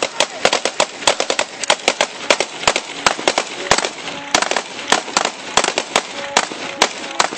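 Several assault rifles firing rapid, irregular single shots and short bursts, several cracks a second, each with a short echo.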